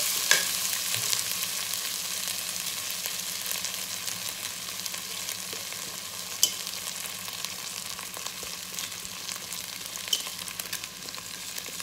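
Soaked basmati rice frying in hot ghee in a nonstick pan: a steady sizzle that slowly fades, stirred with a wooden spatula, with a few sharp clicks, at the start, about halfway and near the end.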